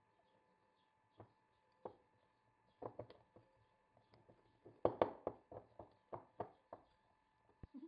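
Hand wire whisk stirring cocoa and flour into a thick batter in a glass bowl: irregular soft taps and clinks of the whisk against the bowl, busiest about five seconds in.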